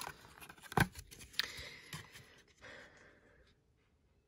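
Plastic clamshell wax-melt pack being handled: crinkling and clicking plastic, with one sharp click a little under a second in, dying away to near silence in the last second.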